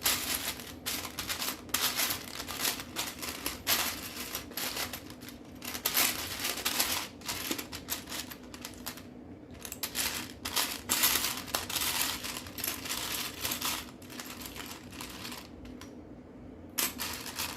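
Loose plastic Lego pieces clicking and rattling as a hand sifts through them. The clatter is dense at first, thins out over the last few seconds, then comes back in a short burst near the end.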